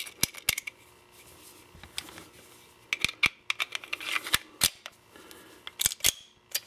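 About ten short, sharp metallic clicks and snaps, some close together in pairs: a snap cap being pressed into a Model 1911 magazine and the magazine being pushed into the pistol's grip.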